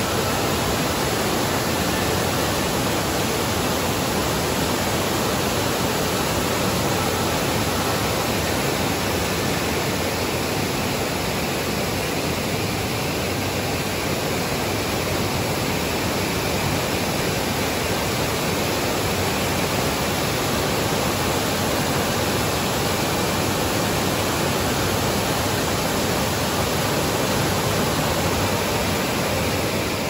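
Wide, low waterfall cascading over broad rock ledges: a steady, unbroken rush of falling water.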